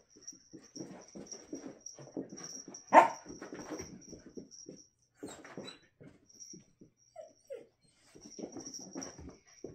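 An adult dog and a puppy playing, with a run of short scuffles and small vocal noises, one loud sharp bark about three seconds in, and two short whimpers a little past seven seconds.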